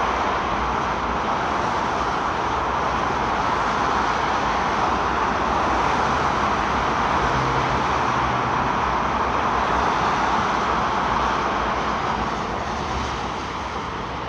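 Steady motorway traffic noise: the tyres and engines of cars, vans and articulated lorries passing at speed, blending into one continuous wash with no single vehicle standing out. It eases a little near the end.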